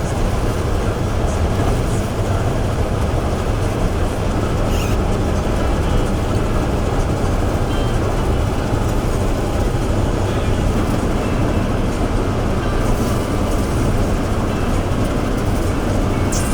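Claas combine harvester running steadily: a loud, even machine drone with a deep steady hum underneath.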